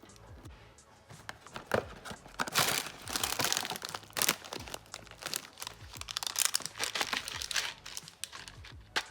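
Plastic candy wrappers being crinkled and torn open by hand, an irregular run of crackles that gets louder and busier a couple of seconds in.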